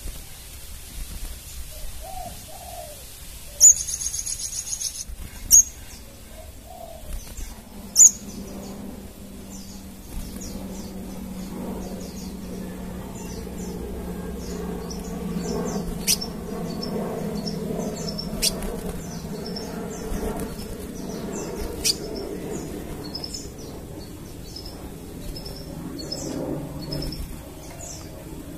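Crimson sunbird chirping: a few sharp, loud high calls, then from about eight seconds in a fast, busy run of short high chirps. A low steady hum sits underneath.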